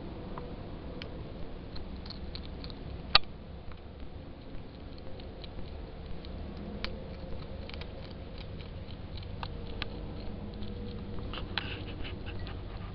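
Hedgehog eating from a bowl: irregular small clicks and crunches of chewing, with one louder click about three seconds in.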